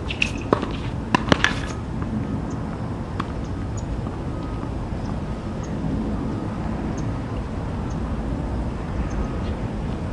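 Tennis balls struck and bouncing: a few sharp pops in the first second and a half, then a steady low background rumble with only a faint tick or two.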